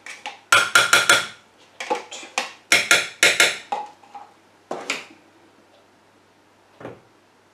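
Metal spoon tapping against the rim of a stainless-steel food-processor mixing bowl to knock sour cream off. The sharp taps ring briefly and come in quick runs: a few about half a second in, more around three seconds, then single knocks near five and near seven seconds.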